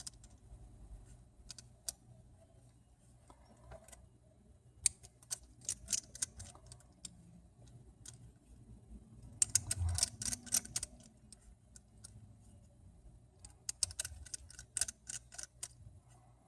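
Light, scattered clicks and ticks of a small precision screwdriver removing tiny screws inside an iPhone 6, coming in clusters a few seconds apart.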